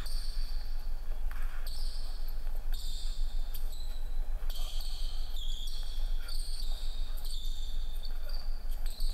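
Basketball being dribbled on a hardwood gym floor during one-on-one play, with sneakers squeaking sharply on the boards again and again.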